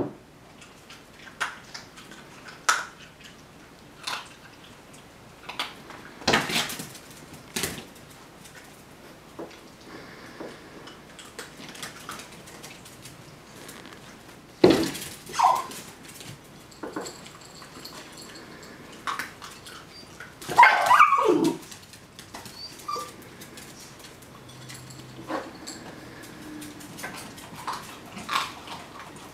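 A dog giving a few short barks and whines, the loudest about halfway through and a longer one with falling pitch about two-thirds through, among scattered light clicks and taps.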